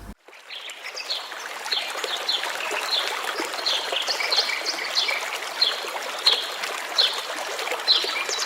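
Running water of a stream trickling steadily, with short bird chirps repeating about twice a second over it.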